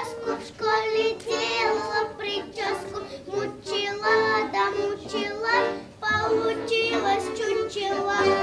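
A young girl singing solo over a musical accompaniment.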